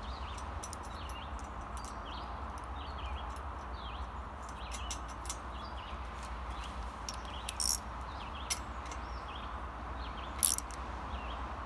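Small birds chirping over a steady outdoor hum, with two sharp metallic clicks in the second half as hand tools work the nut on a bicycle crank's cotter pin.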